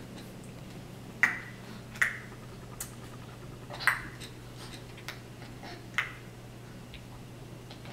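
A baby making sharp clicking sounds with his tongue: four loud clicks one to two seconds apart, with a few fainter ones between.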